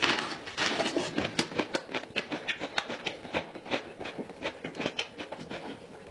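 Close-up eating sounds: a crunching bite into a raw red onion, then continuous crunchy, wet chewing with many sharp clicks and mouth smacks, several a second.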